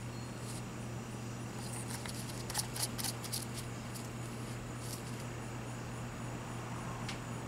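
A few light plastic clicks and taps as a mixing nozzle is fitted to a two-part seam sealer cartridge: a bunch about two and a half to three and a half seconds in, then single clicks near five and seven seconds. A steady low hum runs underneath.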